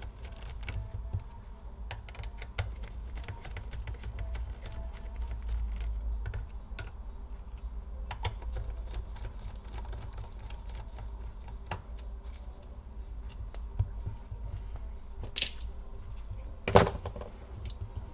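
Small clicks and ticks of a precision screwdriver and small screws being taken out of a laptop's plastic casing, with a few louder knocks near the end.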